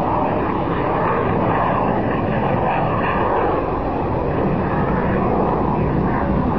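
Jet engine noise from the Frecce Tricolori's Aermacchi MB-339 jets flying overhead, loud and steady.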